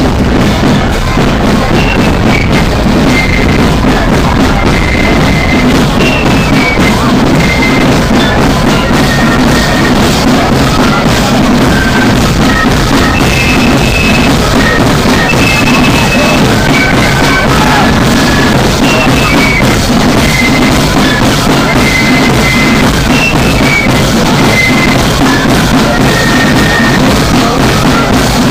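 Marching band playing: a high melody of short held notes over a steady beat of bass and side drums.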